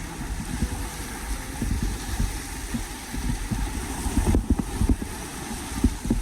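Loud rushing river water and wind buffeting the microphone: a steady low rumble with irregular thumps and a hiss over it.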